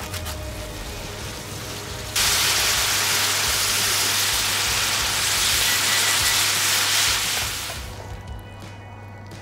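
Beef and burdock sizzling in a frying pan as the soy-and-mirin seasoning liquid is cooked down over medium heat. The sizzle turns suddenly much louder about two seconds in and dies away near the end.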